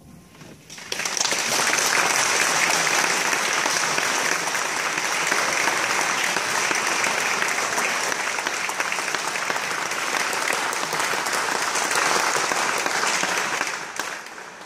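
Audience applause, starting about a second in and fading away near the end.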